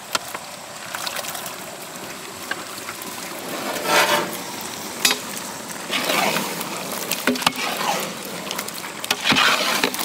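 Curd-marinated quail going into a large biryani cooking pot: wet, sloshing bursts as the meat is tipped in and moved about, about three of them, with a few sharp knocks of metal in between.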